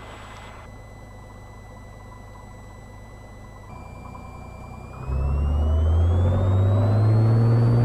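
A Cessna 182's six-cylinder engine and propeller run at low power. About five seconds in, the throttle goes to full for the takeoff roll: the engine gets much louder and its note climbs steadily in pitch.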